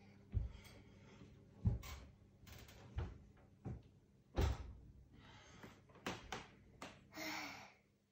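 Kitchen handling noises: about eight irregular knocks and thuds, like doors, trays or utensils being moved, with two short noisy swishes, one near the middle and one near the end, over a faint steady hum.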